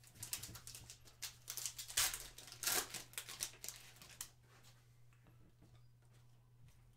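Foil trading-card pack being torn open and crinkled for about four seconds, then only a faint low hum.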